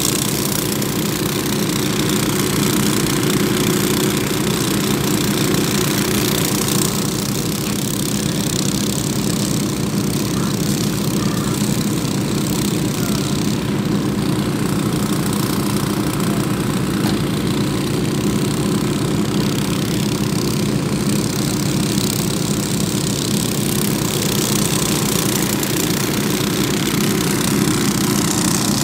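Small petrol-engine portable water pumps running steadily at a constant speed, pumping floodwater out through lay-flat hoses.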